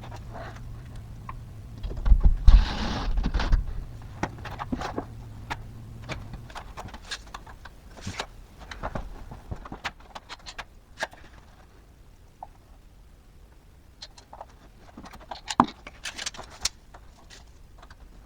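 Hand work on electrical conduit and hardware: a run of scattered clicks and light knocks. A brief louder burst of noise comes about two seconds in, over a low steady hum that stops about six seconds in.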